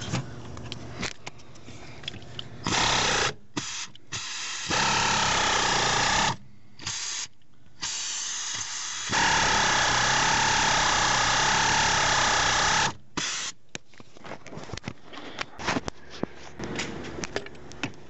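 Power tool motor running in several bursts, the longest about four seconds, as the 18 mm brake pedal pivot bolt is spun out. Scattered clicks and knocks of tool handling come before and after.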